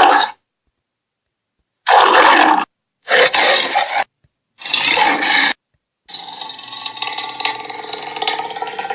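Movie monster sound effects: several short, loud growl-like bursts one after another, then a longer, quieter rasping growl near the end.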